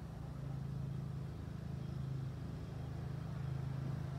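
An engine running steadily nearby: a low, even hum that swells and eases slightly every second or so.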